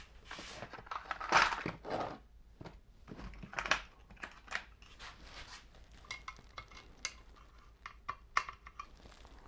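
Small metal tools and parts clinking and knocking as they are handled and set down on a workbench, with some rustling between the clinks. A few clinks ring briefly.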